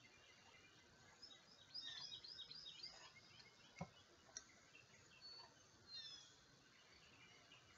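Faint birdsong: quick runs of high chirps about two seconds in and again around six seconds, over quiet room tone. A single soft click about halfway through.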